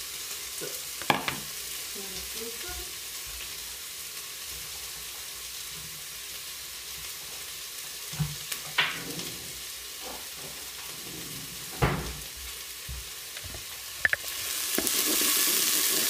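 Steady sizzle of frying in hot oil, with a few scattered knocks. Near the end the sizzle grows louder as chopped red onions go into the hot oil of a Krups Cook4Me multicooker pot and are stirred with a wooden spatula.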